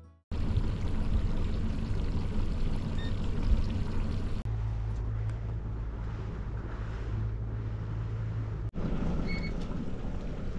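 Boat motor running steadily with wind and water noise, the sound shifting abruptly twice as the clips change.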